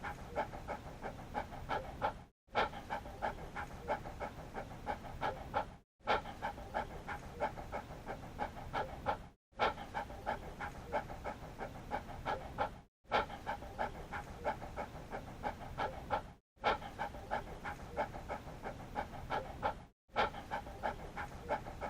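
Dog panting rapidly and evenly, about three breaths a second. It is a short stretch of panting looped over and over, with a brief moment of silence about every three and a half seconds where the loop restarts.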